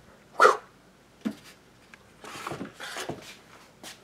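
Scattered handling and movement sounds: a short falling squeak about half a second in, a sharp click, some scuffing and rustling, and another click near the end.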